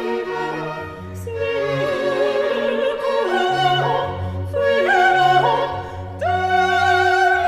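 Background music: an operatic voice holding long notes with vibrato over an orchestra, moving to a new note every second or two.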